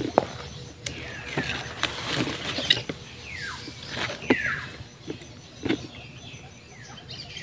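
Rustling and crackling as a snake plant's leaves and its plastic bag pot are handled, with sharp clicks scattered throughout. Several short downward-sliding chirps, typical of birds, sound over it.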